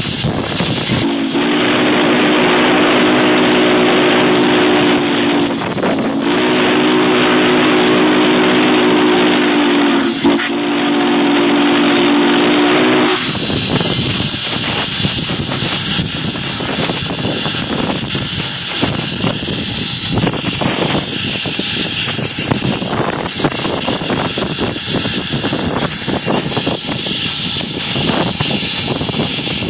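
The steam whistle of S.P.& S. 700, a 4-8-4 steam locomotive, blows three blasts of several notes sounding together: two long ones and a shorter one. After the whistle stops, about a third of the way in, the locomotive's running noise and steam hiss fill the cab.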